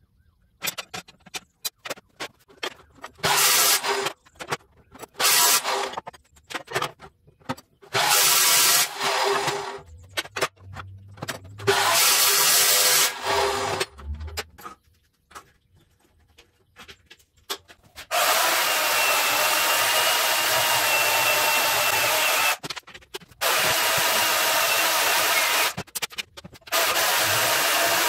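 Clicks and taps of steel being handled and marked, then a metal-cutting chop saw making several short cuts through steel, each a second or so long. From about two-thirds of the way in, a portable band saw cuts steel in longer steady runs with a steady whine.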